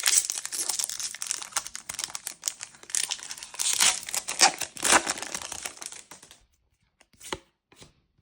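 Foil trading-card booster pack wrapper being torn open and crinkled, the crackling lasting about six seconds. It stops abruptly, followed by a couple of faint brief clicks.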